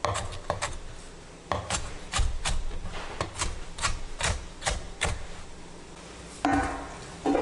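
Chef's knife chopping pickled mustard stems on a cutting board: a steady run of about three chops a second that stops about five seconds in. Two short, louder sounds follow near the end.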